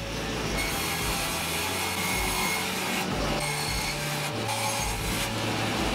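Table saw cutting a sheet of board fed along the fence: a steady rushing cutting noise that starts about half a second in and carries on.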